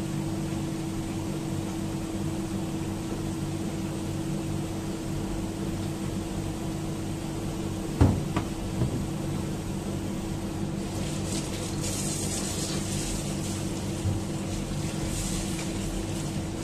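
Electric cooktop heating an empty stainless steel pot with a steady hum. A few sharp ticks come about eight seconds in, with a light crackling hiss later and a knock at the very end.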